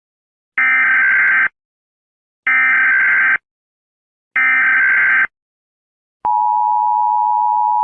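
Emergency Alert System header: three identical bursts of SAME digital data tones, each about a second long with a second's pause between, encoding a National Weather Service tornado warning. About six seconds in, the steady two-tone EAS attention signal begins.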